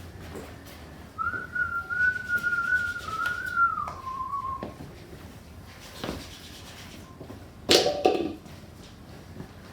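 A single whistled note held for about two and a half seconds, wavering slightly, then dropping to a lower note for a moment before stopping. A short, sharp noise comes near the end.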